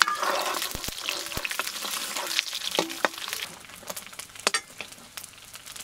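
Food sizzling and crackling as it fries in a blackened wok, with a metal ladle scraping and knocking against the pan a couple of times. The frying gets quieter after about three and a half seconds.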